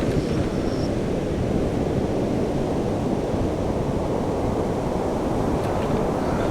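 Steady, low rumbling noise of turbulent water and wind, layered as an abstract soundscape, with a faint short high whistle about half a second in.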